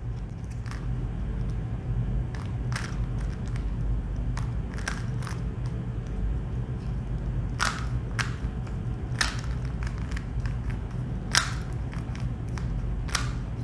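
Plastic Rubik's cube having its layers twisted to scramble it: irregular sharp clicks and clacks, a dozen or so, over a steady low hum.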